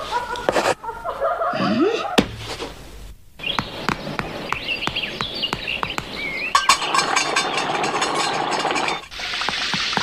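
Cartoon soundtrack of short music and sound-effect snippets that change with each cut. About nine seconds in, a steady hiss of rain begins.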